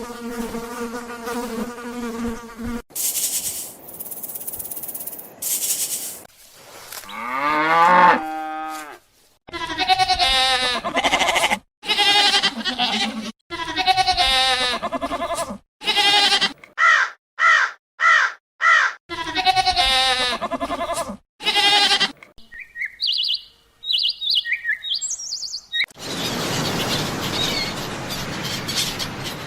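A succession of different animal calls, one clip after another: pitched calls and bleat-like cries, falling glides, and short high chirps near the end.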